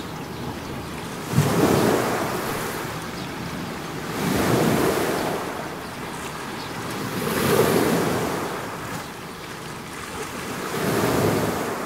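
Rushing noise that swells and fades four times, about every three seconds, like surf breaking or wind gusting; the first swell starts with a sudden hit about a second and a half in.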